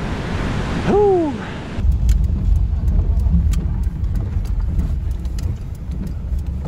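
A man's shout of "woo", rising and falling in pitch, about a second in, over wind noise on the microphone. From about two seconds in, road noise inside a moving car takes over: a steady low rumble of engine and tyres with faint scattered clicks.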